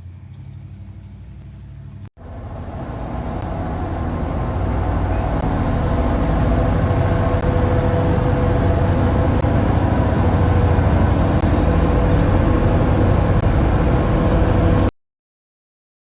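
A motor vehicle running: a low rumble with a steady hum that builds for a few seconds after a cut, then holds steady before stopping abruptly.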